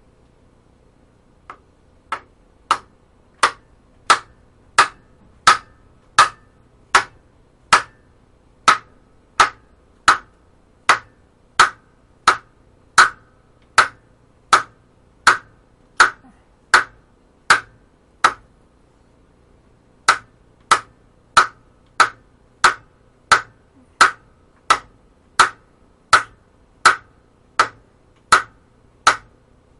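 Lead-filled rubber mallet tapping steadily on the engine's timing gear to drive it home, about one and a half blows a second. The taps start light and quickly grow harder, stop for about two seconds in the middle, then carry on at the same pace.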